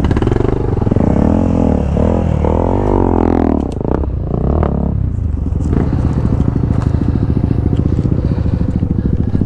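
Off-road motorcycle engine rising and falling in pitch as the throttle is opened and closed, then running steadier and lower from about halfway through.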